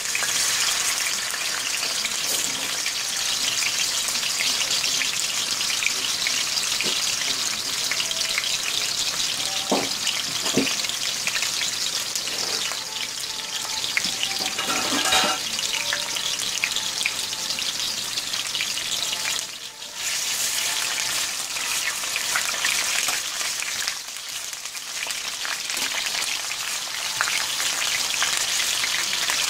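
Sliced white onion frying in hot oil and butter in a stainless steel skillet: a steady, crackling sizzle.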